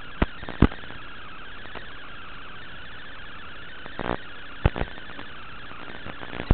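Steady hiss with faint warbling whistle tones, the static of an FPV drone's analog video link, broken by several sharp clicks and pops. The two loudest come just under a second in and near the five-second mark.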